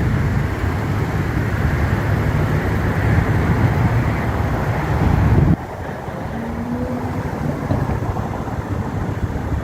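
A 2012 Mercedes-Benz C300's secondary air injection pump runs loudly and steadily over the engine at idle, then cuts off suddenly about five and a half seconds in, leaving the engine idling more quietly. The pump is going bad, which is what makes it this noisy.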